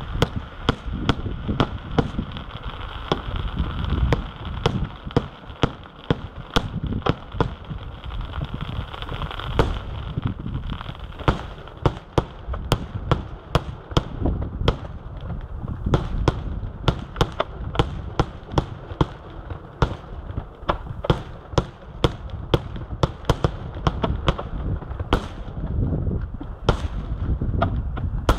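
Aerial firework shells bursting in a display: an irregular string of sharp bangs, several a second at times, over a continuous low rumble.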